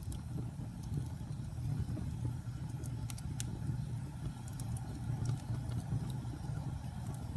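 Fire burning: a steady low rumble of flames with sharp crackles and pops scattered irregularly through it, a small cluster of them about three seconds in.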